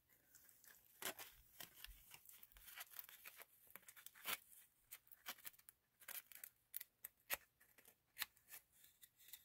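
Faint, quick, irregular scratching of sandpaper rubbed against a small metal battery contact tab held in pliers, cleaning leftover battery-acid corrosion off the tab.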